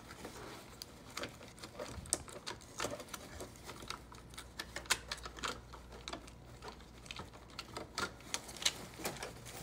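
Faint, irregular small clicks and taps of the printer's plastic ink damper assembly and its tubes being handled.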